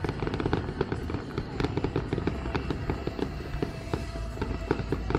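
Aerial fireworks going off in a dense string of sharp pops and crackles, many per second, over a low rumble.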